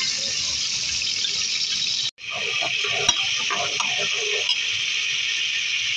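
Ginger-garlic paste sizzling in hot oil in an aluminium pressure cooker, stirred with a metal slotted spoon that scrapes and clicks against the pot. The sound breaks off for a moment about two seconds in.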